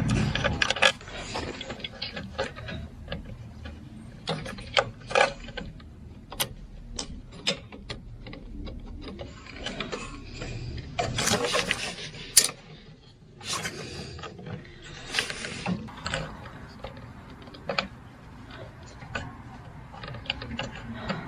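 Hand tools and small metal parts being handled while working on a mower's wiring: scattered clicks and knocks, with a few longer scraping rattles midway.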